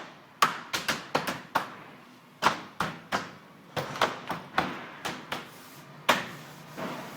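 Andersen exterior window trim being tapped back into place: about twenty sharp taps in quick, uneven clusters, with a short pause about two seconds in and the last one loudest, just after six seconds.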